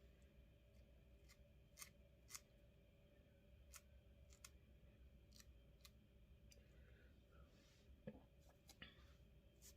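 Faint, irregular snips of small scissors cutting wig hair, about a dozen clicks spread over several seconds.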